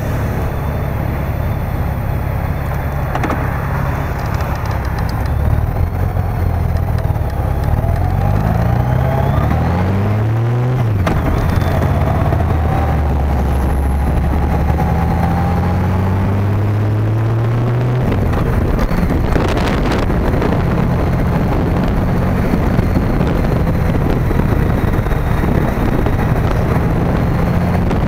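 Motorcycle engine ticking over in traffic, then pulling away and accelerating through the gears: the pitch rises and drops sharply at a shift about eleven seconds in, rises again and drops at another shift around eighteen seconds. After that it cruises steadily under a rush of wind noise.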